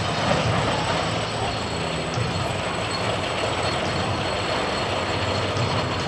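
Steel roller coaster train rolling along its track, a steady rushing rumble with some wheel noise.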